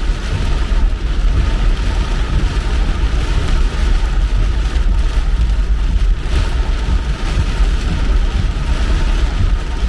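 Car driving on a wet road in the rain: a steady low rumble of road and engine noise with an even hiss of rain and tyre spray.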